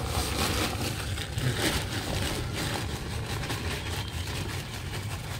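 A plastic sack rustling and crinkling as it is handled and garden soil is tipped out of it onto the ground, over a low steady rumble.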